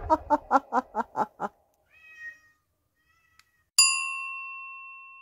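Added sound effects: a quick string of short pitched pulses, about five a second, fading out over the first second and a half, then a single bell-like ding a little before four seconds in that rings on and dies away slowly.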